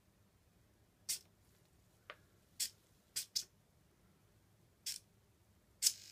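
A hobby servo clicking in short, sharp twitches, about seven at uneven intervals, as the homemade Arduino turntable rig is powered up for its first test.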